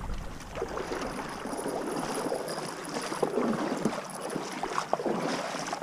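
Shallow river water rushing and splashing in a steady wash of noise, close to the microphone.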